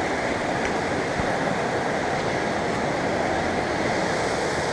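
Small, shallow mountain stream running steadily, a constant rush of flowing water.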